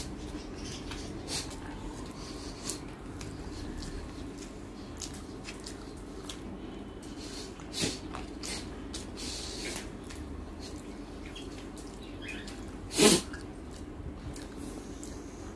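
Close-miked eating sounds of rice and chicken curry eaten by hand: scattered wet mouth clicks and smacks of chewing, over a steady low room hum. One louder short burst comes near the end.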